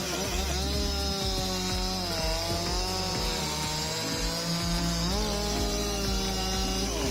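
A two-stroke chainsaw running at high revs under load, its pitch dipping and recovering about three times as the chain bites into the wood. Background music plays underneath.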